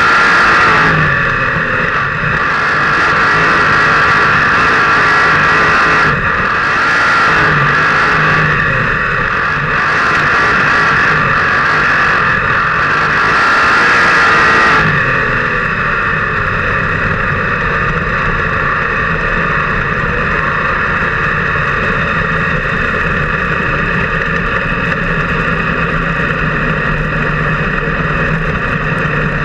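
360 sprint car's 360-cubic-inch V8 heard from the cockpit at race pace on a dirt oval, surging and easing every few seconds with a rushing hiss over it. About halfway through it drops suddenly to a steady, lower engine note.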